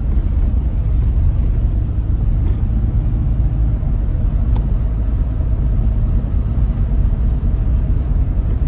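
Steady low rumble of a Ford vehicle driving on the road, engine and tyre noise heard from inside the cabin.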